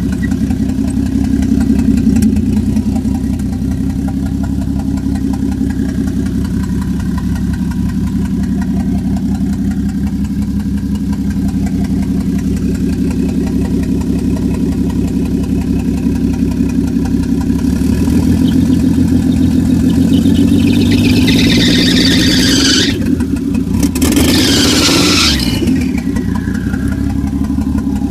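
Toyota 1JZ straight-six idling unevenly, then revved briefly about three-quarters of the way through, with a high squeaky squeal that rises with the revs and falls away as it drops back to idle. The owner takes the squeal for a failing turbo and the uneven idle for a possible misfire or knock.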